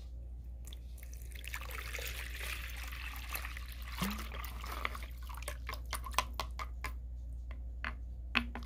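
Water pouring from a plastic water bottle into a plastic tub for a few seconds, followed by a series of light clicks.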